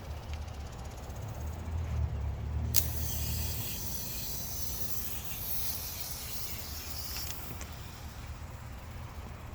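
A steady high hiss, like a spray, starts suddenly about three seconds in and stops about four seconds later, over a low rumble.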